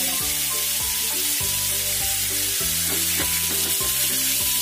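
Minced chicken and garlic sizzling as they fry in hot oil in a frying pan, stirred and broken up with a plastic slotted spatula. Light background music with held notes runs underneath.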